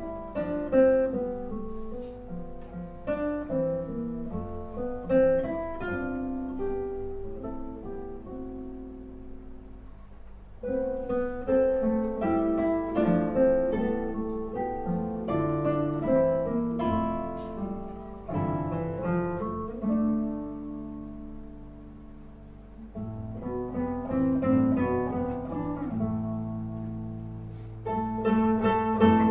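Classical guitar quartet playing: four nylon-string guitars plucking interlocking melody lines and chords. The music eases to a quieter passage about a third of the way in and again about two-thirds in, then grows louder toward the end.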